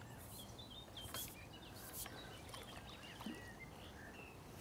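Faint birdsong: small birds chirping and twittering in short, quick notes over a low, steady outdoor background rumble, with a few faint clicks.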